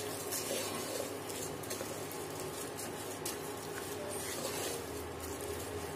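Wooden spatula stirring soaked rice into the masala in an aluminium pressure cooker: a soft scraping and stirring with a few light taps against the pot, over a steady low hiss.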